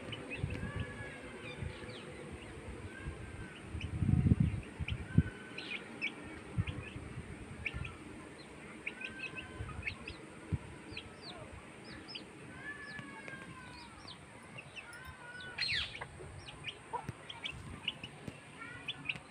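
Domestic hen and chicks calling, with many short, high cheeps from the chicks and repeated longer, arched calls at a lower pitch. A few low thumps around four to five seconds in are the loudest part.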